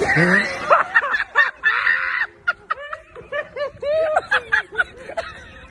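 Hearty laughter in quick, repeated bursts, each note rising and falling in pitch.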